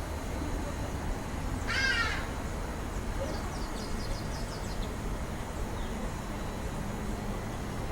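A bird gives one harsh call about two seconds in, followed by a few faint high chirps, over a steady low background rumble.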